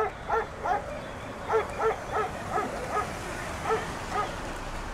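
A dog barking over and over in short, high yaps, about three a second, with a brief pause about a second in.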